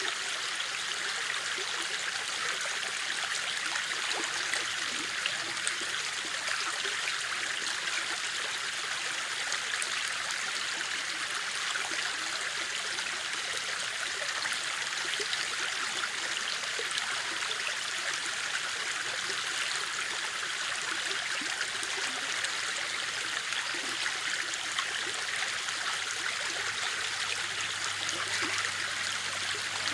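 A river or stream flowing and rippling steadily, an even rushing of water without a break.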